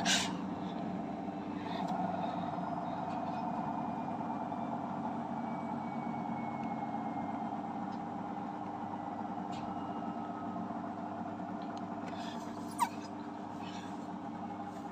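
Samsung washing machine running its spin cycle: a steady motor and drum hum made of several tones. There is a sharp click right at the start and another about 13 seconds in.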